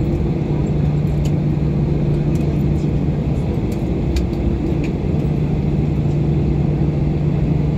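Jet airliner's engines heard from inside the cabin as the plane rolls along the runway: a steady hum with a constant low drone, at an even level, with a few faint clicks.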